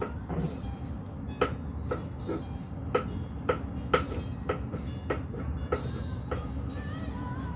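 Cleaver chopping raw shrimp on a wooden chopping block, sharp knocks coming about twice a second as the shrimp is minced fine.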